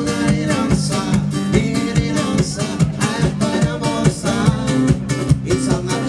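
A live band playing: strummed acoustic guitar over a steady drum beat, with pitched melody lines above.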